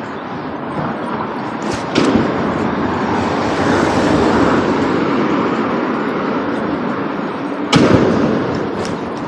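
A passing train: a loud, steady rushing rumble that swells and then eases, with two sharp bangs about six seconds apart.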